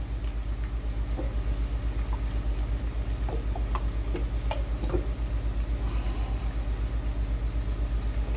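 A steady low hum with a fast flutter throughout, and a few faint squirts and clicks from a plastic barbecue-sauce bottle being squeezed into a pot between about one and five seconds in.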